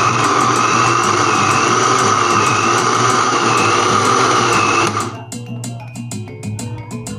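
Small electric blender motor running steadily as it grinds food very fine, then switched off abruptly about five seconds in.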